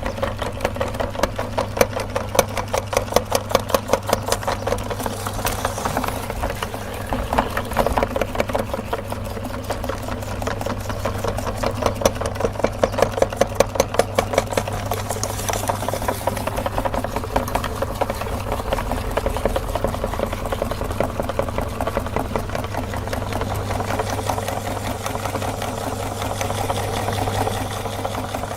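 Electric meat grinder running steadily, its motor humming under a fast, even clatter, with louder pulsing spells a few seconds in and again around the middle.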